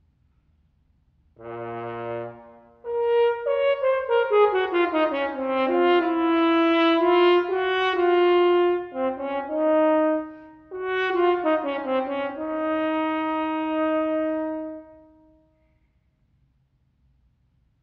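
Solo French horn, unaccompanied. After a short held note about a second and a half in, it plays flowing phrases of moving notes with a brief break in the middle, ending on a long held note a few seconds before the end.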